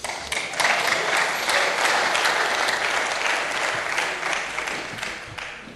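Applause from the seated legislators of a parliamentary chamber. It starts at once, holds steady for about four seconds and then dies away near the end.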